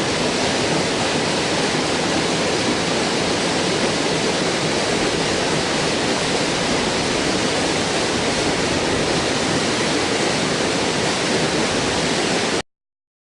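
Waterfall: a steady rush of falling water, cutting off suddenly near the end.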